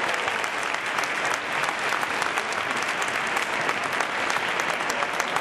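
An audience applauding steadily, with many hands clapping together.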